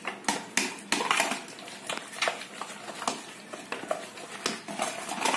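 Wire whisk beating a thick gram-flour and semolina batter in a bowl, the wires tapping and clicking against the bowl's side a few times a second over a wet stirring sound.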